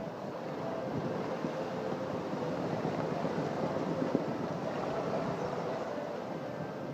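Steady rush of wind and churning water as a sailboat drives through rough seas, with wind buffeting the microphone.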